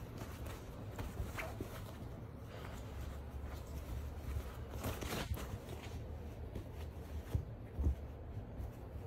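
Two small dogs play-wrestling on a fabric couch cushion and blanket: scuffling and rustling of fabric with scratchy clicks from their paws, and two louder soft thumps near the end.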